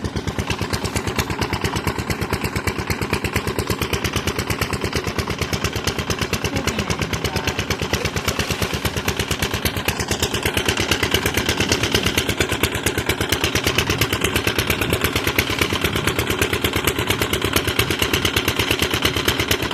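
A small engine running steadily at idle, with a fast, even beat.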